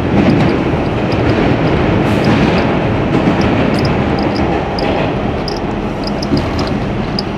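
R68 subway car running along the rails, heard from inside the car: a loud, steady rumble of wheels and running gear that gets a little quieter toward the end as the train comes into a station.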